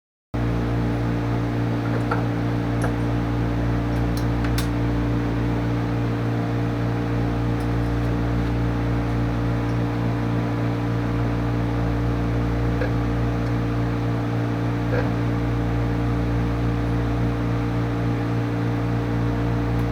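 A workshop machine's motor running steadily, a constant hum with several steady low tones and no change in speed; it starts abruptly a moment in.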